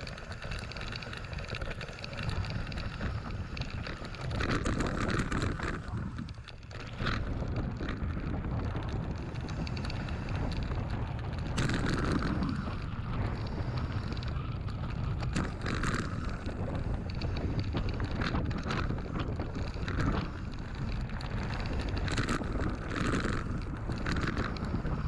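Mountain bike rolling fast downhill on a gravel and dirt track: knobbly tyres crunching over stones and the bike rattling over bumps, with wind buffeting the handlebar-mounted microphone.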